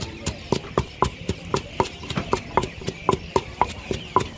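Wooden pestle pounding chillies and garlic in a som tum mortar in a quick, even rhythm of about four strokes a second. Many of the strokes give a short ring.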